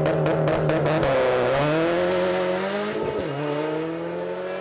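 Subaru WRX STI's turbocharged 2.5-litre flat-four accelerating away, the revs climbing, dropping at an upshift about three seconds in, then climbing again as the car recedes.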